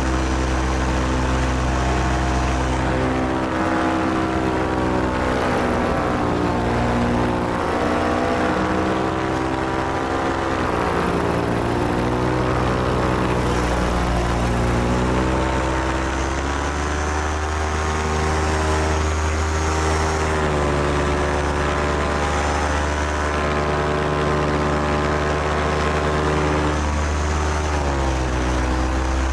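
Paramotor's Moster 185 two-stroke engine and propeller running in flight, mostly steady, with the engine note dipping and rising again a few times as the throttle is eased off and opened back up.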